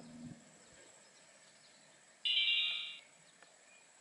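Action camera's electronic beep as it switches on while plugged into a power bank: a single tone a little over two seconds in, lasting under a second and fading away.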